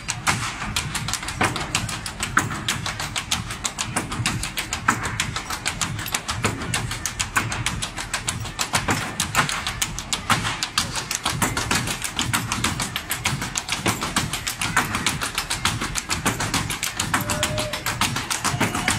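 Ottawa Valley step dancing: several dancers' hard-soled shoes rap out fast, dense, rhythmic taps and stamps on the stage floor over live music.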